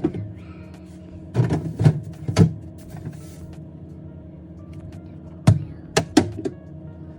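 A series of knocks and clatters from things being picked up and set down in a kitchen, over a steady low hum.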